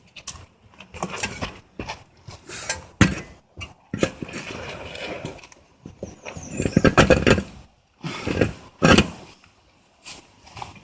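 Metal parts and hand tools being handled on an ATV's front wheel hub: a series of knocks, clinks and scrapes, with a quick run of clicks about seven seconds in.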